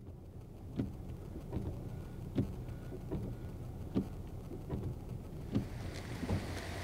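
Rain and water running across a flooded road, a steady wet rumble, with dull thuds about every 0.8 seconds.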